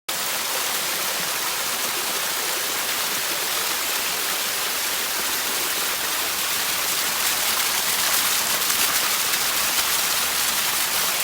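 Steady rush of a small waterfall on a creek, the water splashing and pouring without pause, a little louder from about seven seconds in.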